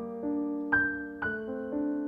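Background music: soft, slow piano with notes struck about twice a second over sustained chords.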